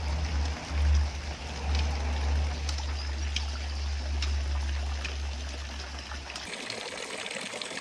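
Water from a village stone fountain's spout splashing steadily into its basin. A low rumble runs under it and stops about six and a half seconds in.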